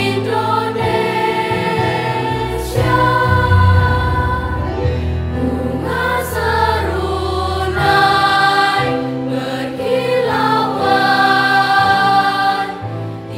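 Mixed choir of junior high school students, boys and girls, singing in several parts, in phrases of long held chords.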